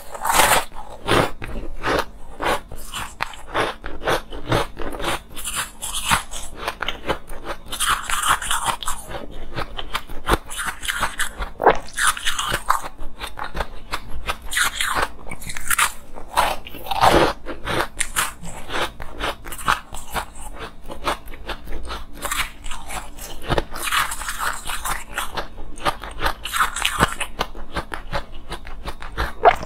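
Close-up crunching of frosted purple ice: a block bitten, then chewed with many quick, irregular cracks and crunches, picked up close by a clip-on microphone.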